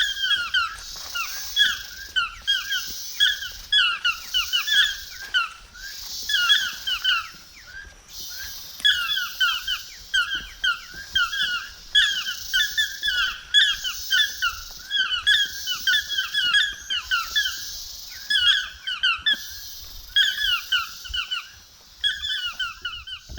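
Rapid series of short, squeaky, downward-sliding calls from a wild animal, in clusters of three or four, repeating over and over. Behind them is a high hiss that swells and fades in blocks of about a second and a half.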